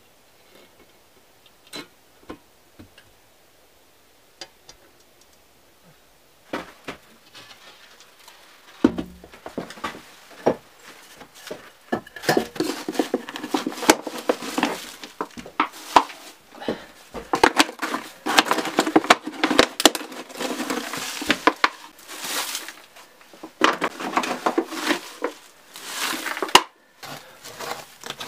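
Dry soot, crumbled mud and broken brick rubble scraped and raked out of an old brick stove's firebox with a gloved hand and a wooden stick: dense rattling and scraping that starts a few seconds in and grows busier, after a few faint clicks.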